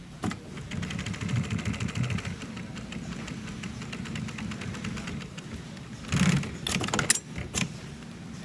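Sewing machine running fast and evenly through a stretch of stitching, sewing reinforcing back tacks. About six seconds in come a few sharp clicks and knocks.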